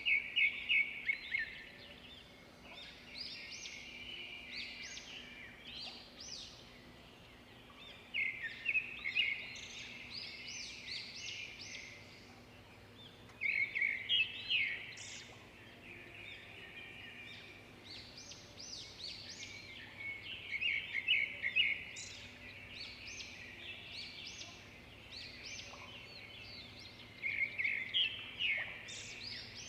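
Songbirds singing: bursts of quick, rapid chirps that return every five to seven seconds, over a faint steady hum.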